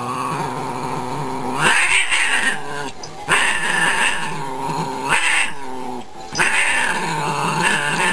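Two domestic cats fighting: continuous drawn-out yowling and growling, swelling into louder caterwauls about four times.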